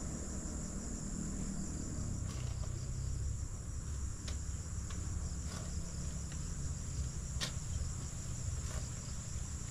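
Steady high-pitched chorus of insects, with about five sharp knocks at irregular intervals from digging in the soil.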